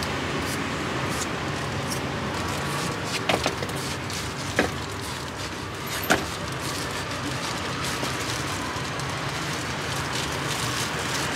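Steady street background noise with a low traffic hum. Three sharp knocks or clicks come in the middle, a little over a second apart.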